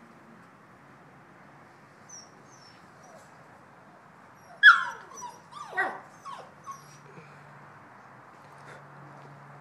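Bouvier des Flandres puppies yelping and whining: a loud yelp falling steeply in pitch about halfway through, followed by a few shorter falling whines, with faint squeaks a little earlier.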